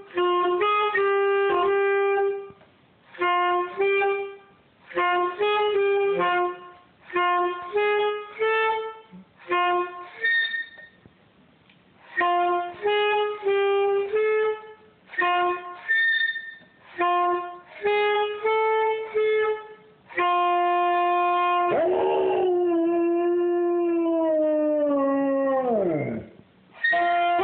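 Saxophone playing short phrases of held notes, with a dog howling along. In a couple of the pauses there are brief high dog whines, and near the end a long held saxophone note is joined by a drawn-out howl that bends and then slides steeply down.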